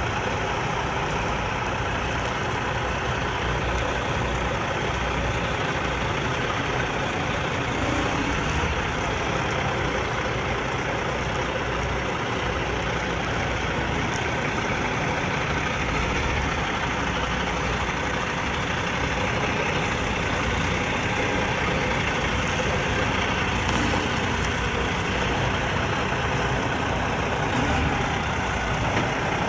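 Semi truck's diesel engine running at a steady idle, unchanging throughout.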